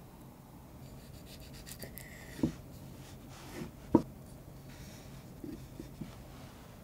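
Kitchen knife slicing blueberries on a wooden cutting board: light rubbing, then sharp knocks of the blade on the board, the loudest about four seconds in, followed by a few lighter taps.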